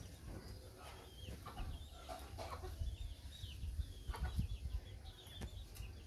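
Chickens calling: a run of short, high chirps with a few lower calls, and several short clicks mixed in.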